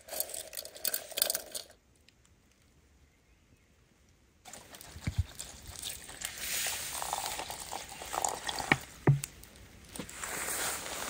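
Water pouring from a plastic bottle into a metal cooking pot over a campfire, starting about four and a half seconds in and running steadily, with a few small knocks. A brief rustle comes at the very start, followed by a pause.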